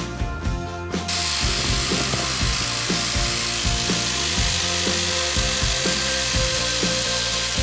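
Background music with a steady beat. About a second in, a woodworking power tool starts running with a steady hissing noise and carries on under the music.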